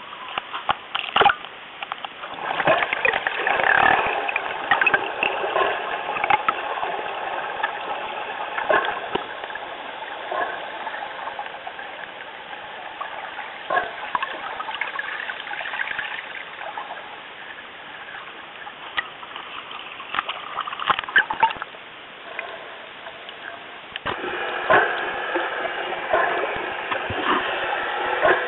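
Sea water splashing and sloshing against a waterproof action camera at the surface and underwater, with sharp splashes in the first few seconds and again about 20 seconds in. The sound changes about 24 seconds in.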